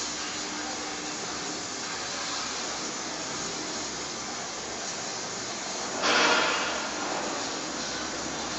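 Steady rushing noise of a stove burner fired with coconut shell charcoal briquettes, with a sudden louder burst of noise about six seconds in that fades within a second.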